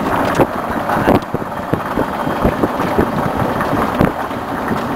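Wind buffeting the microphone while riding in an open-sided moving vehicle: a steady rush broken by frequent irregular low thumps.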